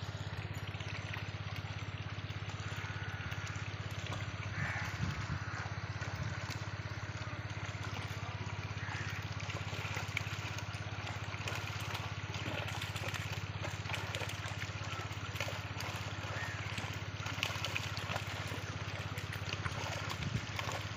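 Water trickling, gurgling and splashing as a crowded mass of small fish fry churns the surface in a netted pen, over a steady low mechanical hum.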